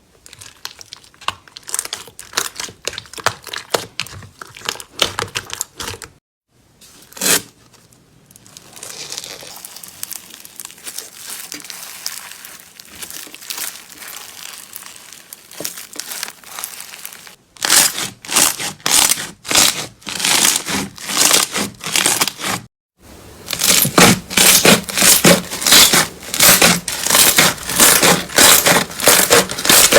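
Slime being squeezed and poked by hand, making crackling, crinkling clicks. Brief silent breaks split it into separate takes, and the last take is louder, with quick regular pops.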